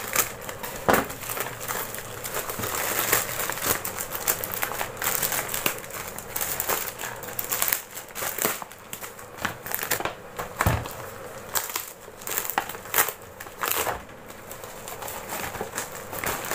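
Plastic courier mailer and padded poly packing bag crinkling and rustling as they are cut open and handled, in dense irregular crackles, with a dull knock about ten seconds in.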